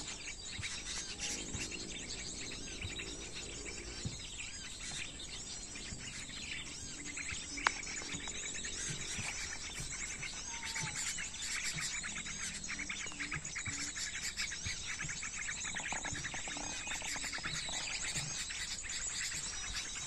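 Dense, noisy chirping and calling of small birds, sooty-headed bulbuls among them, mixed with the bird-lure call recording that is drawing them in. One sharp click sounds about eight seconds in.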